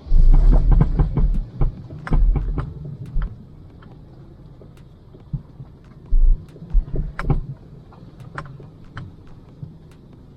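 Front suspension of a 2000 Toyota Celica GT knocking and clunking sharply, over and over, as the car is driven on a rough road, over a low rumble of driving. The owner takes the knocking for a rubber part in the suspension breaking off.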